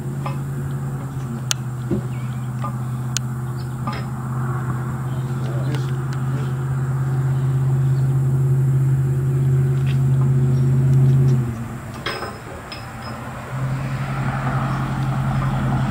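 A vehicle engine running with a steady hum, with a few sharp clicks and knocks over it. The hum cuts off about twelve seconds in and comes back a second and a half later.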